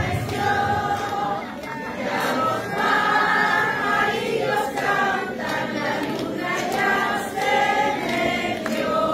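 A crowd of guests singing a song together in a hall, many voices holding the notes in unison.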